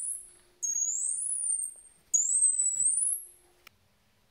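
Bark-deterrent speaker sounding high-pitched rising electronic sweeps, about a second each, twice in a row, triggered by the dogs' barking. This is the "annoying" sound the noise detector plays back to discourage barking.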